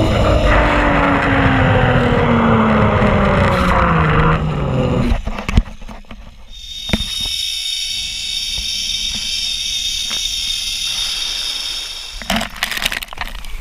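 Zipline trolley wheels running along the steel cable, with wind rushing over the helmet-mounted microphone. A whine falls steadily in pitch over the first five seconds as the rider slows. After that comes a quieter, steady high whine with hiss, and a few sharp knocks near the end.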